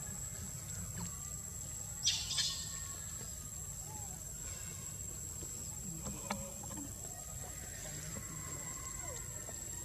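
Steady high-pitched drone of forest insects, with a short, loud rustling burst about two seconds in and a single sharp click about six seconds in.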